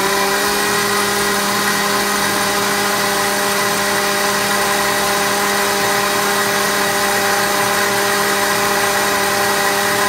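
Electric countertop blender running at a steady speed, mixing a thick corn cake batter of cornmeal, eggs, milk and oil. The motor gives a loud, even hum that holds one pitch.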